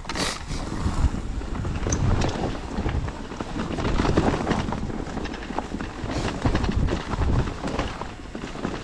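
Wind buffeting an action camera's microphone while riding a mountain bike, with many quick knocks and rattles from the bike going over rough ground.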